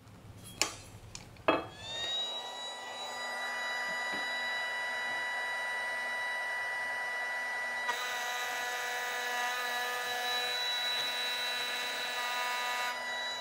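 Makita cordless compact router with a chamfer bit spinning up after a couple of clicks, then running with a steady high whine. From about eight seconds in, a harsher grinding noise joins it as the bit cuts the chamfer around a hole in the steel plate, and both stop near the end.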